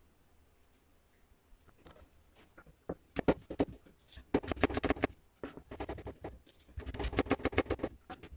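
Chef's knife mincing a garlic clove on a cutting board: fast runs of sharp blade taps, several quick bursts in a row, starting about three seconds in.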